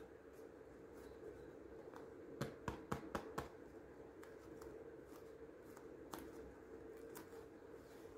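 Hands squeezing and handling a piece of polyurethane foam sponge, quiet handling noise with a quick run of about five sharp clicks near the middle, over a faint steady hum.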